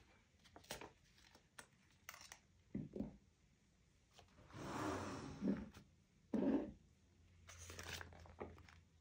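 Paper and stationery handled on a desk: scattered light taps and clicks, a papery rustling sweep of about a second near the middle, a sharp knock soon after, and another rustle near the end.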